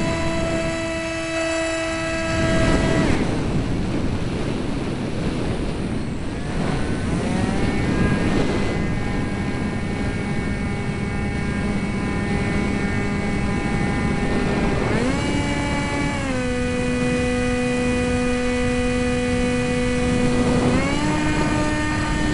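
Eurofighter Typhoon jet engines whining over a heavy rushing noise. The whine shifts up and down in pitch several times as thrust changes.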